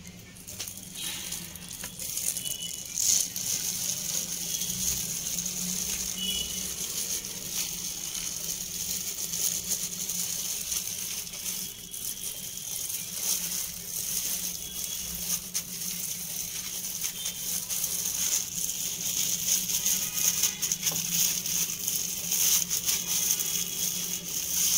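Thin plastic food-handling glove rustling and crinkling, with soft irregular patting and scraping, as a hand tosses and presses batter-coated chicken in a bowl of dry flour. A low steady hum runs underneath.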